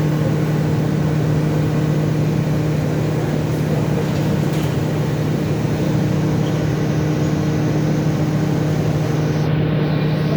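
Absorbent cotton processing machine running, a steady mechanical hum with a constant low drone and a couple of fainter higher tones.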